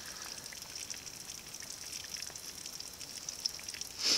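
Coleman camp oven with a chicken roasting inside: a steady sizzling hiss with many small crackles. A brief louder scrape just before the end.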